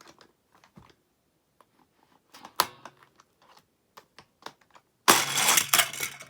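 Small plastic clicks and taps from a toy car play set being handled, with a sharp clack a little over two and a half seconds in. About five seconds in comes a loud clattering rush that lasts just over a second.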